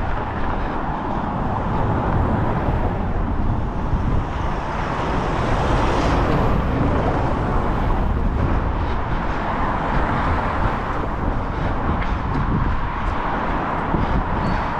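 Steady outdoor city street noise on a wet day: a continuous rush like traffic, with low rumbling throughout and no clear single event.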